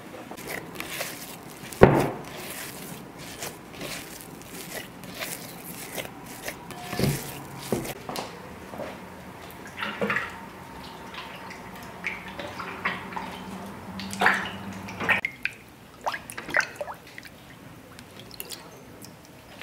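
Hands splashing and swishing in water in a galvanized tin washtub, with drips and small knocks; a single sharp knock about two seconds in is the loudest sound.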